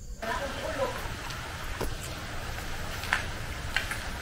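Dog eating from a plastic food dish, with irregular short clicks of chewing and of its muzzle against the dish.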